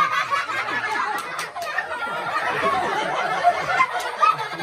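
A group of children laughing together, many voices overlapping at once.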